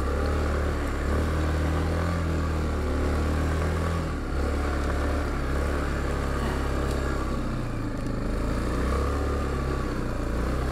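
Yamaha Kodiak 450 ATV's single-cylinder engine running while riding, its low note shifting about four seconds in and again near eight seconds.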